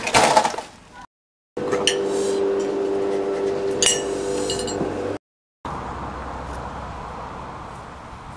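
Knife and fork clinking against a china plate a few times over a steady hum, set between short silent cuts. A brief loud clatter comes just before, and a steady rushing noise follows that slowly fades.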